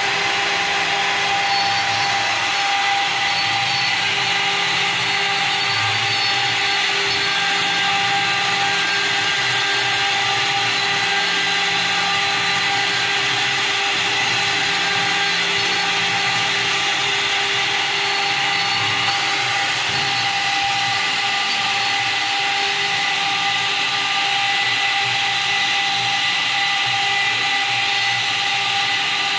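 CNC router spindle running steadily under power, a constant whine over a hiss.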